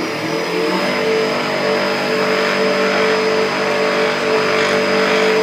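CNC wood lathe running, its motors giving a steady multi-tone whine over a broad hiss; a lower tone joins under a second in as the machine comes up to speed.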